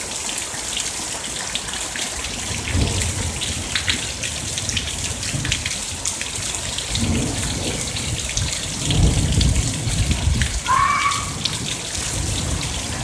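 Heavy rain pouring steadily, with rolls of thunder rumbling several times; the loudest comes about nine seconds in.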